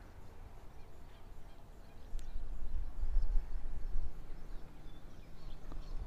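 Wind rumbling on the microphone outdoors, gusting up for a couple of seconds in the middle, with a faint click a little after two seconds in.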